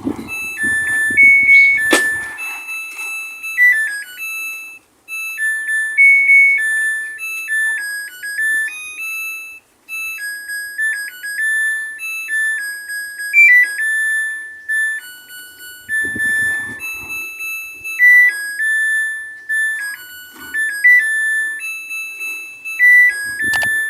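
Samsung top-load washing machine's beeper playing its electronic end-of-cycle melody, a tune of pure bleeping tones, signalling that the calibration cycle has finished.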